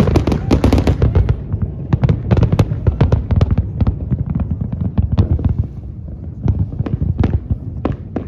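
Fireworks display: a rapid barrage of sharp bangs and crackling bursts, very dense at first, easing slightly past the middle, then picking up again.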